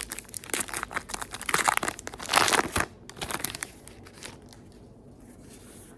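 Plastic wrapper of a trading card pack being torn open and crinkled, with the loudest rip about two and a half seconds in. It quiets to light handling after about four seconds.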